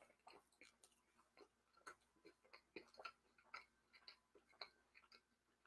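Near silence with faint, irregular small clicks of a person eating from a plastic tray with a fork: chewing and mouth clicks.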